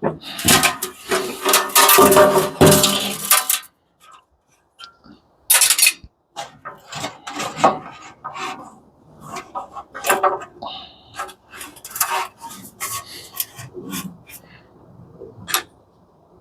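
Metal parts of an industrial coffee maker clattering and scraping as a piece is pulled off. This is followed by a string of separate knocks and clinks as the parts are handled.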